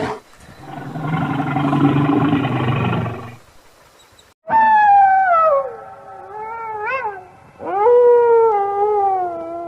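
Animal calls: a low, rough call lasting about three seconds, then after a short pause two long, wavering high calls that slide down in pitch.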